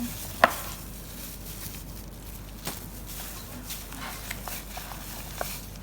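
A spatula mixing a thick mashed potato and lentil mixture in a bowl: one sharp knock against the bowl about half a second in, then a few faint scattered clicks and taps.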